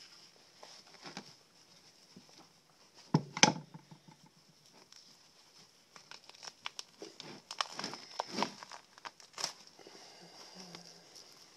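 Crinkling and tearing handling noises with scattered clicks, and a louder knock about three seconds in.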